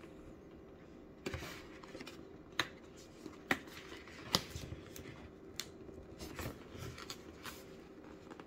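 Fingers handling the GoPro Hero 10's retail box and picking at its sealed tab: about ten sharp, separate clicks and light scrapes of nails on the box, scattered irregularly, over a faint steady hum.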